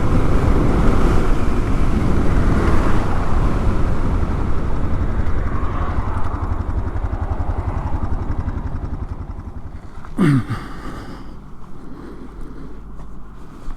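Honda XR650L single-cylinder motorcycle engine running at road speed with wind noise, easing off and slowing in the second half. About ten seconds in comes a short loud sound that falls steeply in pitch, then the engine idles quietly.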